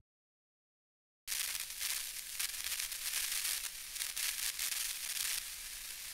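Silence for about a second, then a steady, fairly quiet crackling hiss, mostly high-pitched and flickering in level.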